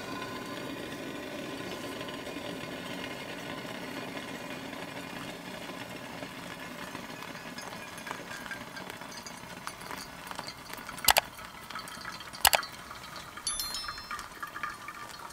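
Hot water poured in a thin stream from a gooseneck kettle onto coffee grounds in a glass pour-over dripper: a steady trickle. Two sharp clinks come near the end.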